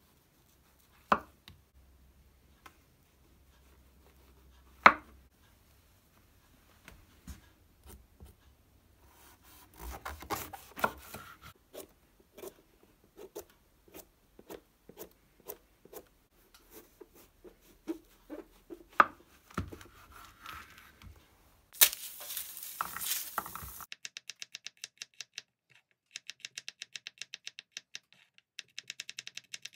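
A chef's knife cutting porcini mushrooms on a wooden chopping board. Two sharp knocks of the blade on the board come near the start, then scattered slicing and clicking sounds. About two-thirds through comes a loud rasping stretch of about two seconds, and near the end a run of quick, evenly spaced chopping taps.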